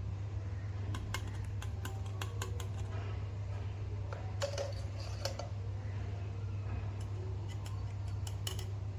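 Irregular small clicks and taps from working on the push buttons of an opened Audio Array AI04 audio interface during a kerosene cleaning to clear rust, over a steady low hum.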